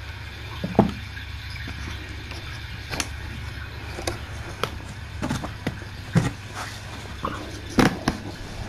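A steady low hum with scattered short knocks and clicks, about seven in all. The loudest come about a second in and near the end.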